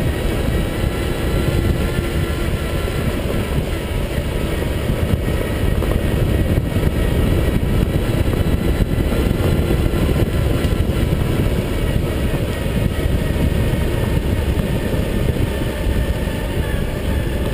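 1982 Tomos A3MS moped's small two-stroke engine running steadily at cruising speed on a gravel track, under a heavy low rumble of wind on the microphone.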